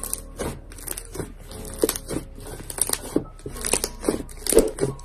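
Thick white slime being squeezed and kneaded by hand, giving irregular crunchy, crackling squishes several times a second, with quiet background music underneath.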